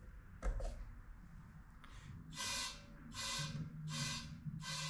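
A thump about half a second in, then air hissing in four short, even bursts about three-quarters of a second apart while a snowblower tire is aired up.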